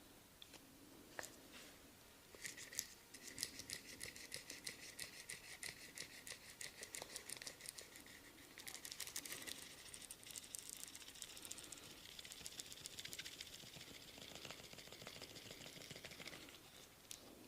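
A barber's hands rubbing briskly in a massage: fast, faint scratching strokes, several a second, which about eight seconds in turn into a steadier rubbing hiss that stops shortly before the end.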